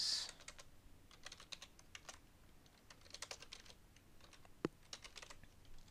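Faint typing on a computer keyboard: quick key clicks in short, irregular runs, with one sharper click about three quarters of the way through.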